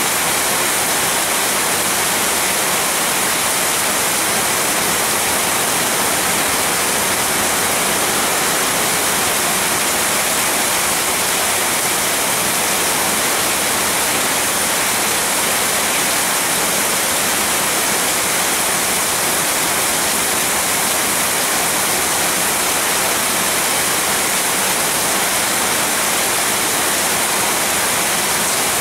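Heavy rain pouring steadily through tree foliage: a continuous, even hiss with no thunder claps.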